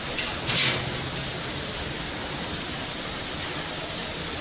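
Steady hiss at a charcoal grill of chicken skewers, with two short, sharper hisses about half a second in.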